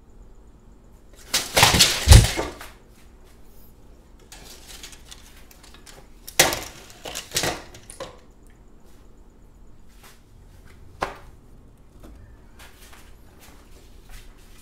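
Wooden boards being handled and set down. A clatter ending in a heavy thump about two seconds in, two more rattling knocks around six to seven seconds, and a single sharp click near eleven seconds.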